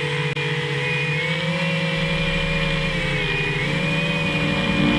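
FPV racing quadcopter's brushless motors whining, the pitch dipping and rising as the throttle changes, heard through the onboard camera. A low rumble joins about two seconds in.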